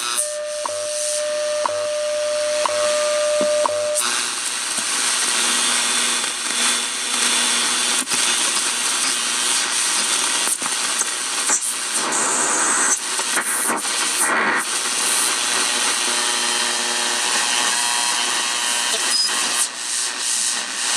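RCA AR-77 shortwave communications receiver giving out static hiss and crackles between stations. A steady whistle tone sounds for the first few seconds and then stops.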